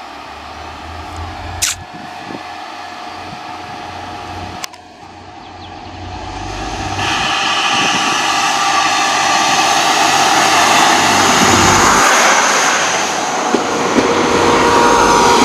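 BOB Integral diesel multiple unit arriving at the platform, its engine and running noise growing steadily louder from about five seconds in as it comes alongside and passes close by. A sharp click about two seconds in and another near five seconds.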